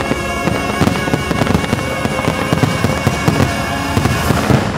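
Fireworks finale: many shells bursting in quick succession with dense crackling, over the show's music.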